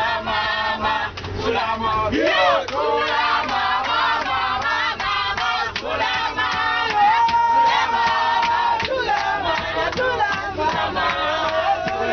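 A group of men and women singing and chanting together with rhythmic hand-clapping. One voice holds a long steady note about seven seconds in.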